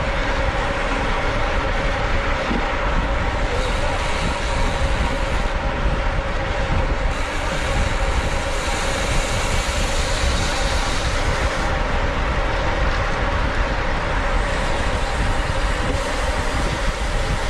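Steady wind rush over the microphone of a camera on a racing bicycle at speed, with a faint steady hum underneath.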